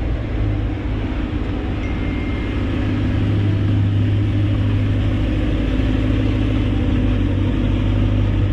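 A car engine running steadily with a low drone, getting slightly louder about three seconds in.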